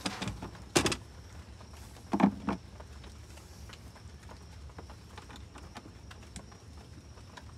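A few sharp plastic clicks and knocks in the first couple of seconds, the loudest just under a second in, as the plastic automatic coop door opener is handled and set against the door frame. After that only a low, even background while the housing screws are worked with a hand screwdriver.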